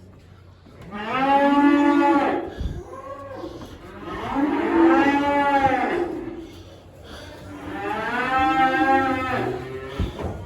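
Calves mooing: three long drawn-out calls, each rising and then falling in pitch, with a short call between the first two.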